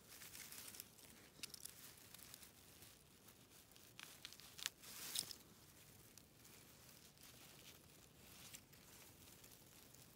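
Faint crackling rustle of dry grass and leaves as fingers push through them and turn a mushroom over, with a few sharper crackles about four to five seconds in.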